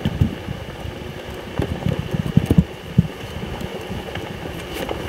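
Electric off-road golf cart driving over rough woodland ground, with irregular knocks and rattles and a faint steady high hum.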